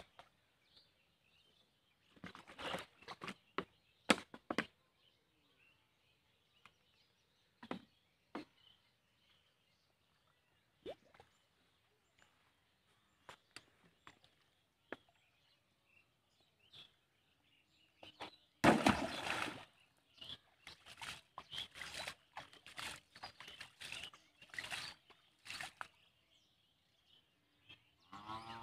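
Pond water splashing and sloshing as a person wades in the shallows and handles a plastic-bottle fish trap. A few scattered splashes come in the first half, then a loud splash about two-thirds of the way in, followed by a run of smaller splashes for several seconds. Faint birdsong sounds in the background, and a cow begins to moo right at the end.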